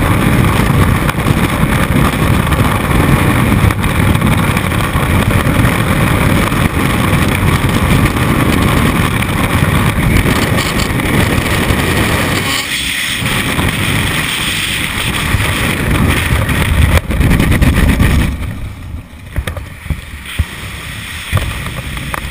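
Freefall wind rushing over a helmet camera's microphone in a skydive: a loud, steady rumbling rush that falls away sharply about eighteen seconds in, leaving quieter, gusty wind.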